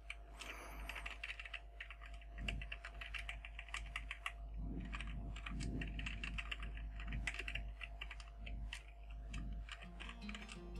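Typing on a computer keyboard: irregular runs of keystroke clicks, with a steady low hum underneath.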